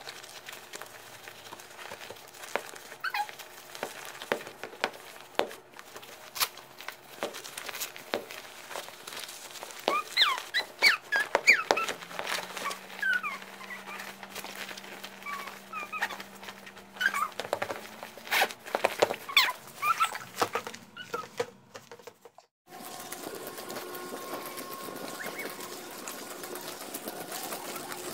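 A nylon snowsuit rustling and crinkling as a toddler is dressed in it, with many short clicks and, midway, a run of short high squeaky calls that rise and fall. Near the end the sound changes abruptly to a steady hum.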